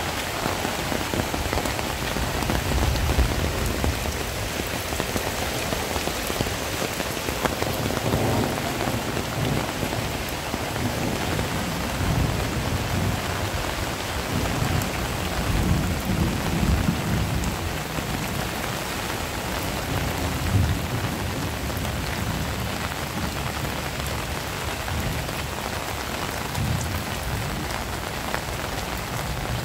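Heavy rain falling steadily, with low rumbles of thunder swelling and fading several times.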